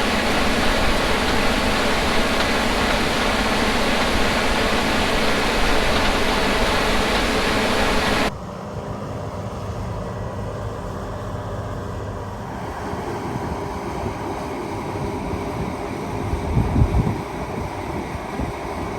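Heavy harvest machinery running steadily. About eight seconds in the sound cuts abruptly to a quieter, steadier machine noise, with a few low bumps near the end.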